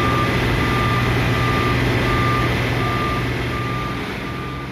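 A truck's reversing alarm beeping in an even rhythm, a little more than once a second, over the steady running of a diesel engine. The sound fades out near the end.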